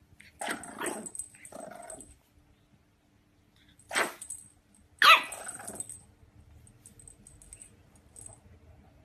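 French bulldog puppy barking: four short barks, two in the first two seconds, a sharp one at about four seconds and the loudest just after five.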